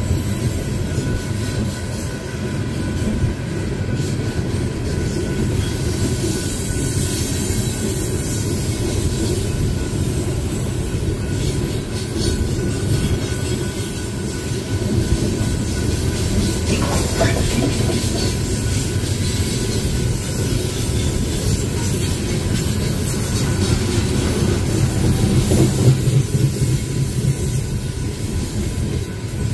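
Loaded coal hopper cars rolling past at a grade crossing, a steady heavy rumble of steel wheels on the rails with a faint steady high-pitched tone above it.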